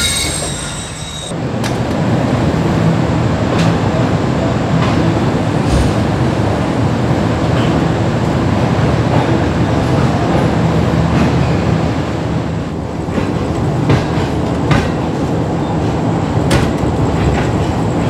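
Passenger train rolling on the rails with a steady rumble and a few scattered clicks from the wheels over rail joints. A high wheel squeal cuts off about a second in.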